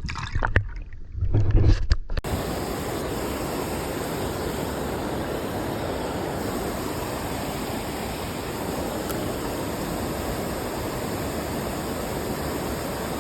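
A few loud bumps in the first two seconds, then, starting suddenly, the steady rush of creek water running over rocks.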